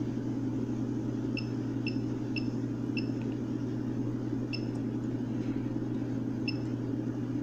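BeerMax brewing controller beeping as its keypad buttons are pressed: six short, high beeps, the first four about half a second apart, then two more spaced out. A steady low hum runs underneath.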